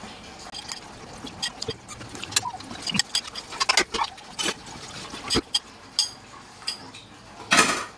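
Eating sounds of a person eating bakso meatball soup: wet slurping of noodles and broth and chewing, with sharp clicks of a metal spoon in the ceramic bowl, and a louder slurp near the end.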